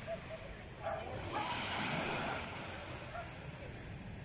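Small waves breaking and washing up a pebble beach, the hiss of the wash swelling about a second in and then easing off.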